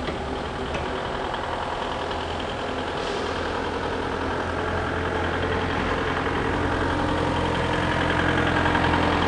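A heavy engine running steadily, slowly growing louder.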